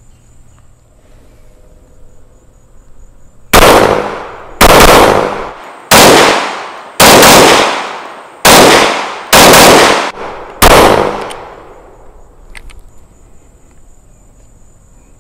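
Seven .45 ACP pistol shots from a Glock 30, fired at a steady pace about a second apart, each followed by a long echoing tail.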